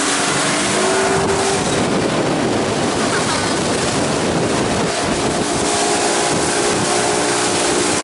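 Motorboat under way: a steady engine drone with water rushing along the hull and wind buffeting the microphone.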